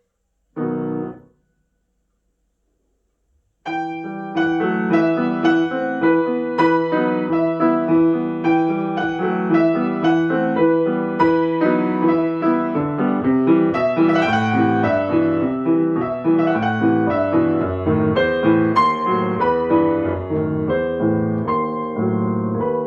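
Solo piano playing a classical piece. A short chord sounds about half a second in, followed by a pause of nearly three seconds. Then continuous playing resumes with rapid repeated notes, and a lower bass line joins about halfway through.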